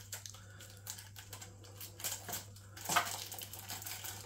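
Rapid light clicks and rattles from a shower hose being handled and uncoiled, with a louder knock about three seconds in, over a steady low hum.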